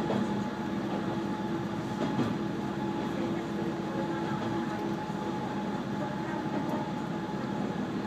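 KiHa 120 diesel railcar running along the line, heard from inside the car: a steady engine drone with a few constant hum tones over the rumble of wheels on rail.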